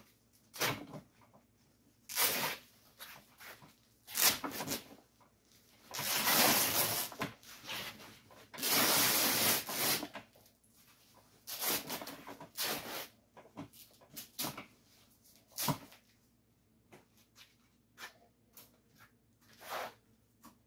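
Old burlap and padding being torn and pulled off a stock 1951 Chevy truck seat's rusty steel spring frame: irregular ripping, rustling and scraping, with two longer rips about six and nine seconds in.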